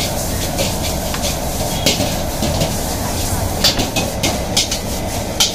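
Metal spatula and ladle clanking and scraping against an iron wok as noodles are stir-fried, in irregular sharp strikes over the steady rush of a high-flame gas burner.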